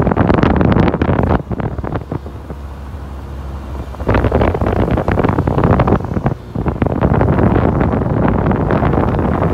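Wind buffeting the microphone in rough gusts over a low rumble of movement. It eases from about a second and a half in until about four seconds, then comes back loud.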